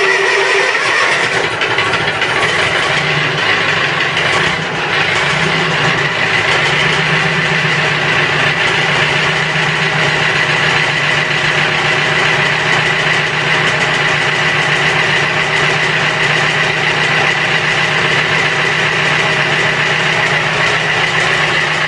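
International Harvester 454 tractor's C157 four-cylinder gasoline engine, just started from cold, running steadily.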